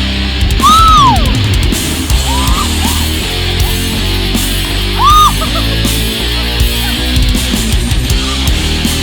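Heavy rock music with distorted guitars and a steady beat, with two loud, high cries that rise and fall sharply over it, about a second in and again about five seconds in.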